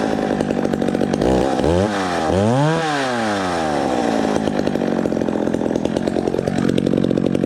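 McCulloch 610 two-stroke chainsaw running straight-piped with its muffler removed. It is revved up twice in quick succession, the second time higher before the revs fall back slowly, and it picks up speed again near the end.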